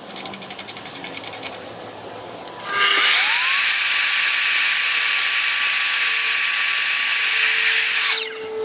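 Evolution F255SMS sliding mitre saw starting up: its motor whine rises in pitch over about half a second. It runs loud and steady at speed while the 255 mm multi-material blade is brought down through an MDF board. About five seconds later it is switched off and winds down with falling pitch. Before it starts there is a quick run of light clicks as the workpiece clamp is tightened.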